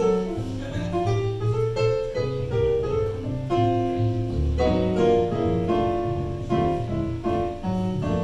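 Casio digital keyboard on a piano sound playing jazz solo: struck chords and melody notes in the right hand over a moving bass line in the left.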